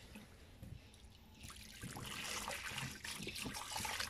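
Water from a hose running and splashing into a tub as it fills, growing louder about a second and a half in, with a few faint knocks.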